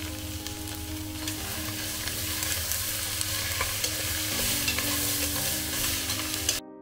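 Sliced mushrooms frying in oil in a stainless steel pressure cooker, sizzling while a metal spatula stirs them and scrapes the pot. The frying sound cuts off suddenly near the end.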